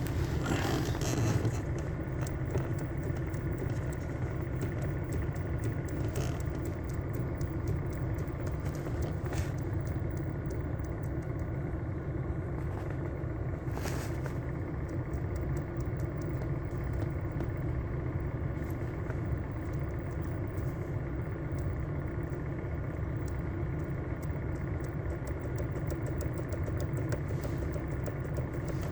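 Kia Cee'd steering column knocking as the wheel is worked: many faint clicks and a few sharper knocks over a steady engine idle. The knock comes from the electric power steering unit, not the steering shaft's universal joints.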